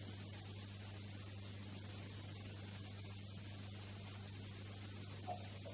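Steady electrical mains hum with a constant hiss over it: the background noise of an old lecture recording.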